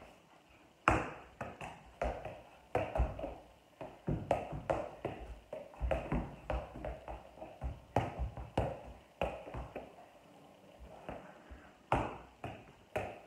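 Soccer ball juggled with bare feet: a run of irregular thuds, about two a second, as the ball is kicked back up. The hits stop briefly around ten seconds in, then start again.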